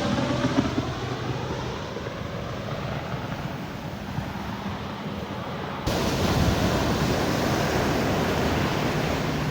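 Jet aircraft passing low overhead and moving away: its engine tones slide down in pitch and fade into a broad rumble. About six seconds in, the sound switches abruptly to louder steady wind noise on the microphone.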